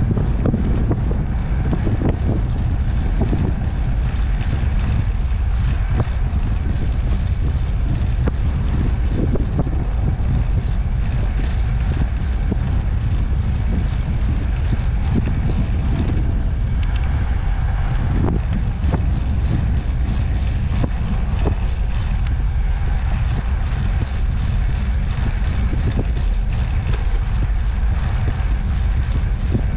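Wind buffeting the microphone as a steady low rumble, mixed with the rolling noise of a recumbent trike's tyres on an asphalt path, with a few faint knocks from bumps.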